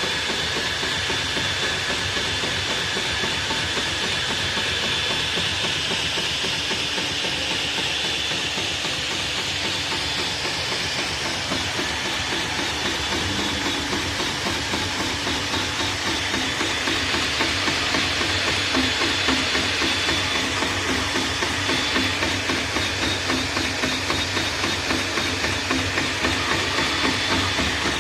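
Argon TIG welding arc on an aluminium engine block: a steady hissing buzz with a faint, regular pulsing, growing a little louder about two-thirds of the way through.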